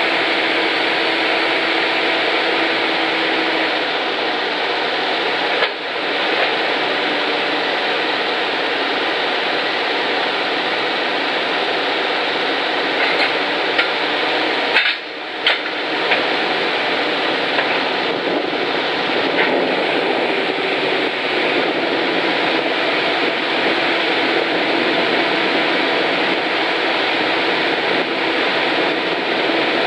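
Caterpillar TL642C telehandler's diesel engine running steadily while its hydraulic boom is lowered and then extended. It makes a constant noisy drone, broken by two brief dips in level, one about six seconds in and one about halfway through.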